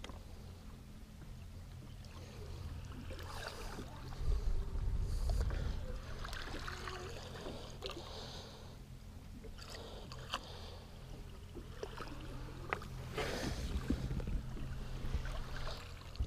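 Water swishing and splashing beside a fishing boat as a musky lure is swept through a figure-eight at the side, over a steady low hum. A strong low rumble comes about four seconds in.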